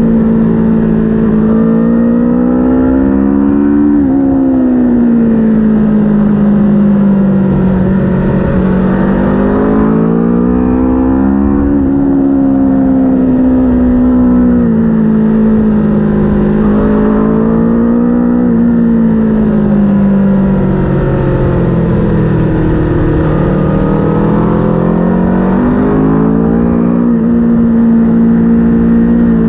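Race vehicle's engine running continuously at high revs, its pitch rising and falling every few seconds as the throttle comes on and off, with a few sudden drops in pitch.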